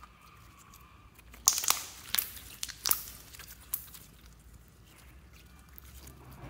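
Clear glitter slime being squeezed and stretched by hand, with a sudden burst of crackling about one and a half seconds in and a run of sharp clicks and crackles over the next two seconds, then quieter handling.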